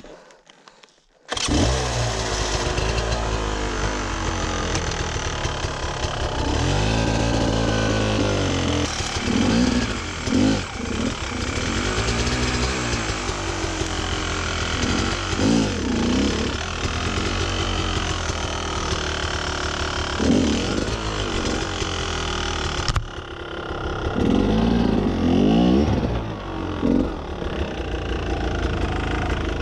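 Enduro dirt bike engine cutting in suddenly about a second in, then running under load with repeated short blips of the throttle that rise and fall in pitch as the bike climbs a steep rocky section. A brief dip in the sound near the end.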